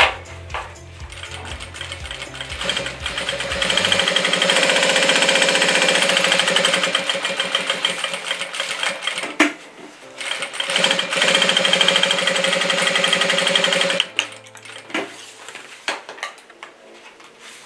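JACK industrial sewing machine stitching at speed through layers of fabric and zipper tape, its needle strokes too fast to count. It runs in two bursts: about six seconds, a brief stop, then about three and a half more seconds.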